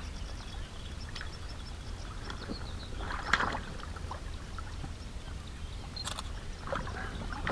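A hooked asp thrashing and splashing at the water's surface close to shore while being played on a spinning rod, with the loudest splash about three seconds in and more splashing near the end.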